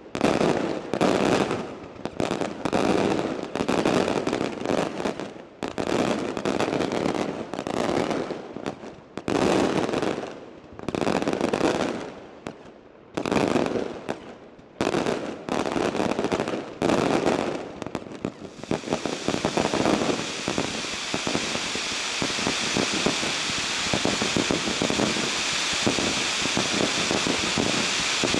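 Daylight fireworks exploding overhead: a string of loud, irregular bangs, a couple a second, each ringing out. About two-thirds of the way in they give way to a steady, dense crackling.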